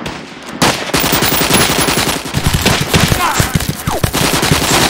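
Sound-effect gunfire: rapid machine-gun and rifle fire, thin at first and becoming a dense, continuous barrage about half a second in, with a couple of short falling whines near the middle.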